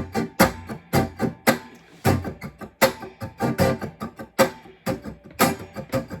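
Guitar strummed in a steady rhythm-guitar pattern, with some strokes much louder and accented among quieter in-between strokes.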